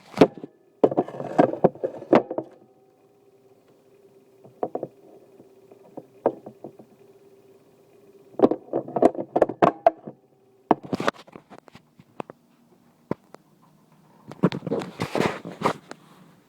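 Handling noises in several bursts: knocking, clicking and rustling, with a faint steady hum between them.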